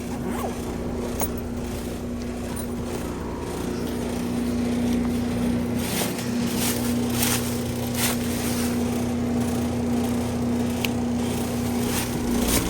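A machine running with a steady, even hum, with several short knocks or clatters in the middle.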